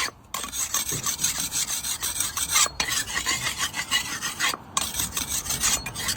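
Steel cleaver blade being sharpened by hand: quick rasping back-and-forth strokes of the blade against the abrasive, broken by a few short pauses, as a new cutting edge is put on.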